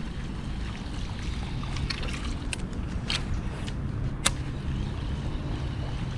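Steady low rumble like wind on the microphone, with three or four brief sharp clicks or knocks in the middle, the last one the sharpest.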